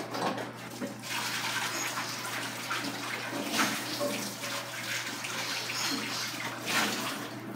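Water running from a tap, filling a vessel with water for boiling, a steady rush that picks up about a second in.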